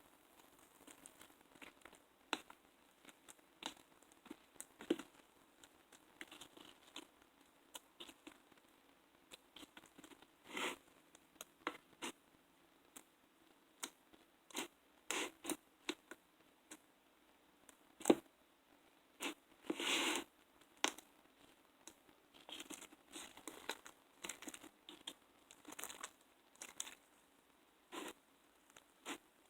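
Slime being mixed and worked by hand: irregular squishy crackles, clicks and small pops, with a sharp snap about 18 seconds in and a longer squelchy burst around 20 seconds.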